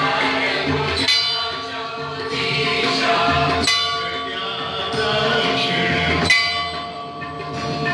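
A large temple bell struck three times, about two and a half seconds apart, its tone ringing on between strikes, over a congregation singing the aarti.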